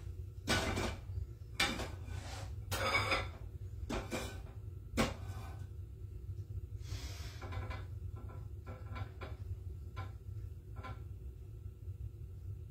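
Kitchen handling noises: a run of short rustles and knocks, the sharpest a click about five seconds in, then a few lighter ticks, over a steady low hum.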